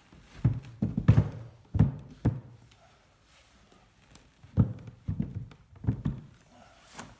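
A heavy lithium battery being set down into a plywood battery holder, its case knocking against the wooden frame in a series of dull thunks as it is worked into place. The knocks come in two groups, with a pause of about two seconds between them.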